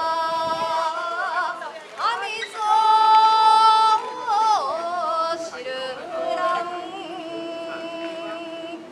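A single voice chanting in shigin style, holding long notes with wavering ornaments and sliding between pitches: the poem recitation that accompanies a kenbu sword dance.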